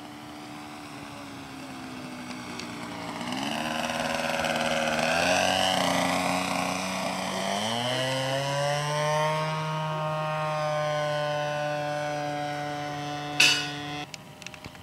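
Engine of an RC Seagull Extra 300S aerobatic model airplane in flight, a buzzing whine whose pitch shifts up and down and steps with the throttle, growing louder a few seconds in. Near the end there is a sharp crack, and the engine sound cuts off suddenly just after.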